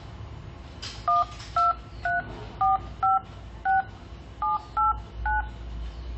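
DTMF keypad tones from a JIAYU G3 Android smartphone's dialer as the digits 1 to 9 are tapped in. Nine short two-note beeps come at uneven intervals of roughly half a second, the lower note stepping up after every third key.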